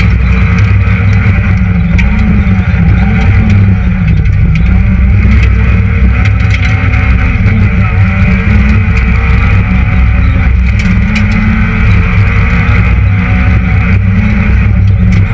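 Citroën Saxo VTS rally car's 1.6-litre sixteen-valve four-cylinder engine running hard, heard from inside the cabin, its pitch rising and dropping repeatedly through the gear changes.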